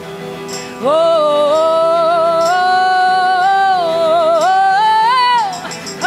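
Live band music: a woman's voice holds one long wordless sung note that starts about a second in and steps up slightly before ending, over sustained electric guitar chords, with faint tambourine hits about once a second.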